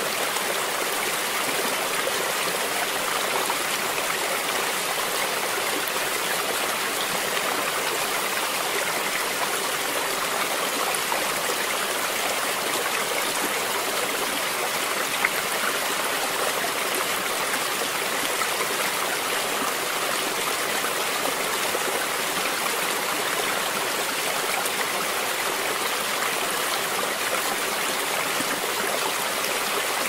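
Shallow river water flowing and rippling over rocks: a steady rushing, mostly high in pitch with little low rumble.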